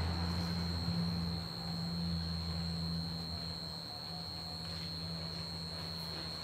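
Steady low electrical hum with a faint, thin high-pitched whine over it, and a few faint light clicks near the end.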